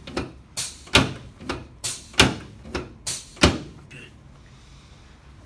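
A quick series of sharp knocks, a loud one about every second and a quarter with lighter ones between, stopping about three and a half seconds in.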